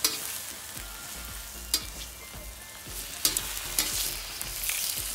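Thin slices of beef steak sizzling in oil on the hot steel plate of a fire-ring griddle: a steady frying hiss with crackle. A few sharp clicks stand out, about a second and a half apart.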